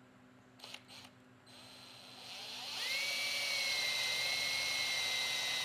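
Two light clicks, then an electric hand drill spins up about a second and a half in and runs at a steady high whine while drilling a hole.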